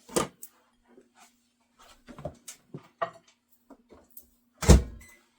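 Scattered clicks and knocks as a bowl is put into a microwave, with one loud thump near the end, such as the microwave door shutting. A faint steady hum runs underneath.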